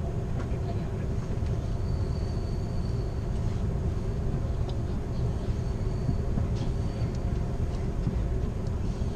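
Amtrak California Zephyr passenger car rolling along the rails, heard from inside the rear car: a steady low rumble with a few light clicks and a faint high squeal that comes and goes.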